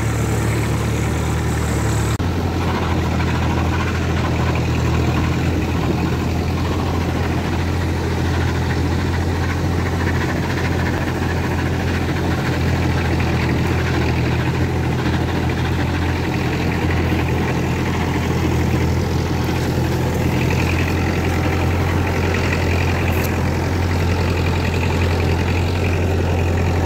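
Tractor engine running steadily with a low hum, carrying a pesticide sprayer. For about the first two seconds a high spray hiss from the sprayer lance lies over it, then stops.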